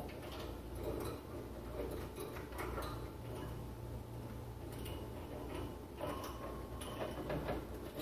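Cage birds moving about a wire cage: irregular small clicks, ticks and rattles of beaks and feet on the metal bars, perches and plastic toys, over a steady low hum.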